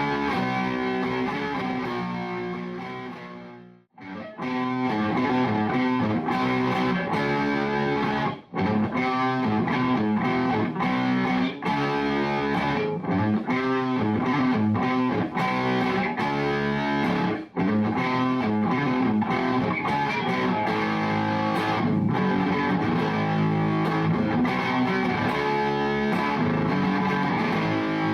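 Music led by a distorted electric guitar. It fades out about four seconds in and starts again straight away.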